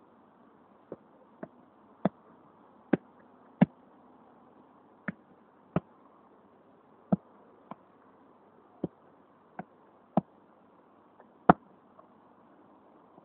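A football being struck and touched by a foot on turf: a series of sharp thuds at uneven intervals, roughly one a second, the loudest near the end, over a faint steady hiss.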